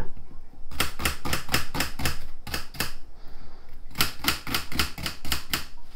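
Kitchen knife chopping an onion, the blade striking a hard surface in a fast, even run of about six strokes a second, with a brief pause about three seconds in.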